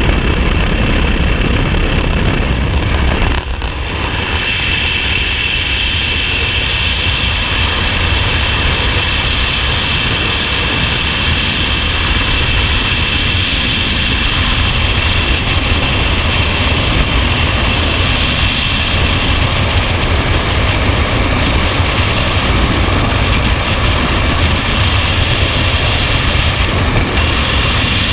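Loud, steady wind rush on the microphone of a skydiver's camera: first the jump plane's engine and slipstream at the open door, then, after a brief dip about three and a half seconds in as the jumpers leave the aircraft, the continuous wind roar of freefall.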